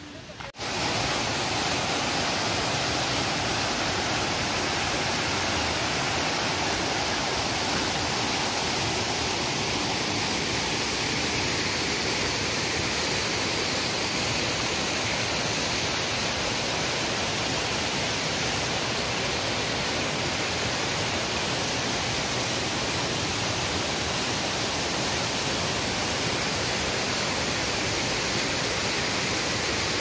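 Creek water rushing over rocks in a small cascade: a steady, even rush that starts suddenly about half a second in.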